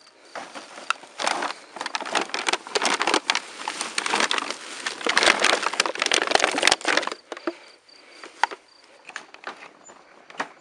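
Plastic rubbish bags rustling and crinkling as they are handled and pressed into a wheelbarrow: a dense crackling for about seven seconds, then only scattered clicks and knocks.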